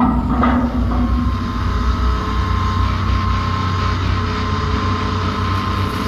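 Diesel engines of a tracked excavator and a farm tractor running steadily, with a thin steady whine as the excavator swings its empty grapple back. A few bits of soil and branches clatter into the steel dump trailer in the first half second.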